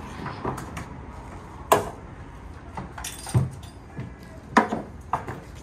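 Metal tie-down hardware and a motorcycle being handled in a wooden shipping crate: a string of sharp knocks and clacks, loudest about two seconds in and again about a second before the end, with a brief metallic jingle around three seconds in.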